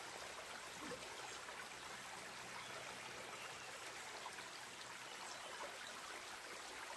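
Shallow forest stream flowing over stones: a faint, steady rush and trickle of water.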